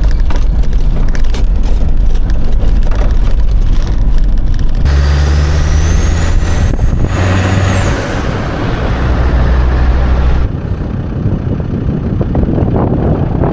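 Land Rover Defender's engine running under load as it drives through a muddy, waterlogged track, with the noise of tyres in mud and water. The sound changes abruptly about five seconds in and again near ten seconds.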